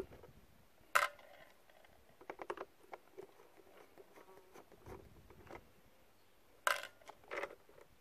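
Scattered sharp plastic clicks and knocks from screwdriver work on a bread maker's lid hinge: a click about a second in, a quick run of small ticks around two and a half seconds, and two louder knocks near the end.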